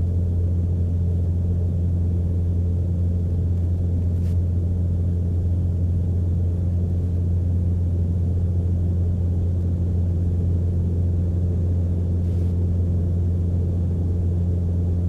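Steady low drone of a Mooney M20C's four-cylinder Lycoming engine and propeller, heard inside the cabin. The aircraft is climbing with the throttle full in, and the drone stays even throughout.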